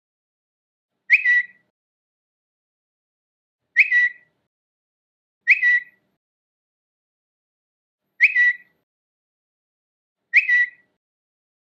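Twitter notification sound, a short high bird-like chirp, played five times at uneven gaps of roughly one and a half to three seconds.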